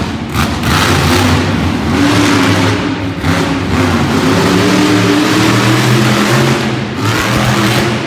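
Bounty Hunter monster truck's engine running loud under hard throttle, revving up and down as it drives the dirt arena, with short dips in throttle about three and seven seconds in.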